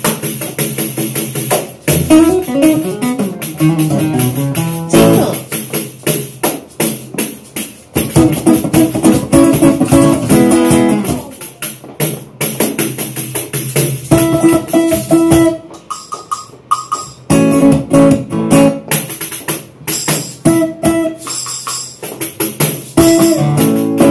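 Live instrumental passage of a pop song: guitar playing over a steady percussion beat, with the beat dropping out briefly twice in the second half.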